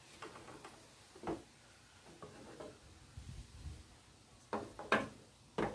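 A hard plastic boat stand handled on a wooden slatted table: faint rubbing and handling noise, then a few sharp knocks near the end, the loudest at the very end.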